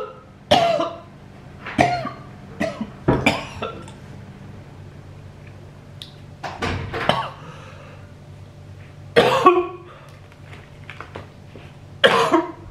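A man coughing, gagging and clearing his throat in short bursts with pauses between, reacting to the taste of a bitter anti-chew spray he has just licked off his hand.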